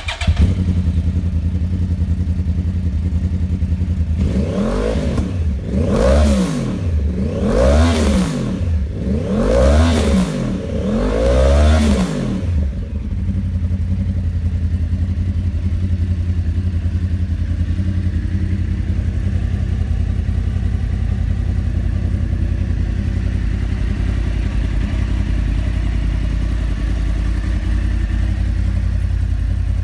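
2010 Yamaha YZF-R1 crossplane-crank inline-four through Akrapovic carbon silencers and a de-cat Y-piece, idling, then revved about five times in quick succession, each rev rising and falling, before settling back to a steady idle.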